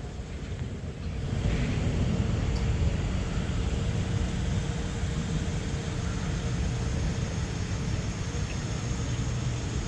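Storm wind buffeting the microphone: a steady low rumble of wind noise that swells about a second in and then holds.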